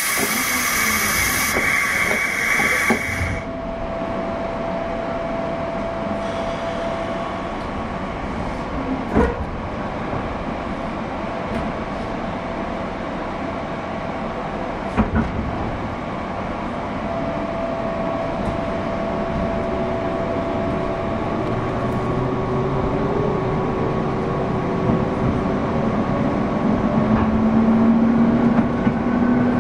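Onboard running sound of a JR 201 series electric train, heard inside a MoHa 200 motor car, which carries no chopper equipment, so there is no chopper whine: steady motor and wheel noise with a couple of sharp clicks from the rails. Near the end a traction-motor whine rises in pitch as the train picks up speed and gets louder.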